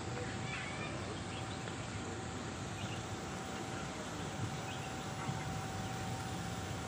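Steady outdoor park ambience: an even hiss of background noise with a thin, steady tone running under it and a few faint bird chirps.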